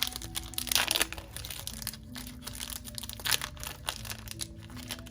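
Plastic wrap crinkling and tearing as it is pulled off sealed Pokémon booster packs, in bursts with the loudest near the start and another about three seconds in. Soft background music plays underneath.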